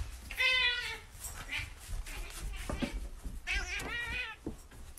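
Domestic cat meowing: two drawn-out, wavering meows, one about half a second in and a longer one about three and a half seconds in, with fainter cries between.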